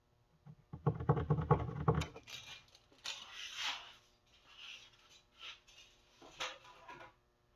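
A steel tape measure retracting: a fast, loud rattle of clicks lasting about a second that ends in a snap. It is followed by several softer, hissy scuffs.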